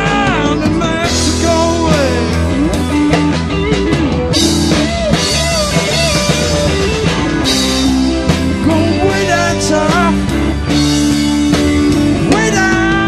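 Rock music played by a band with drums, bass and electric guitar, with a melody line that slides and bends in pitch.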